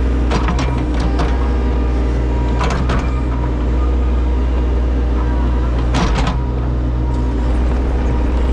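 Excavator's diesel engine running steadily, with several sharp metallic clanks in short clusters: a few in the first second, two near three seconds in, and a couple about six seconds in.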